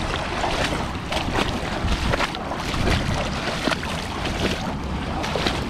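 Water splashing as people wade across a shallow, rocky river, with irregular splashes from their steps over the steady rush of the water.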